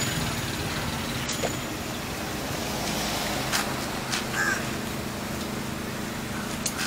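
A few sharp metal clicks and knocks as a food truck's hinged serving hatch is pushed up and propped open, over a steady low engine hum and road traffic.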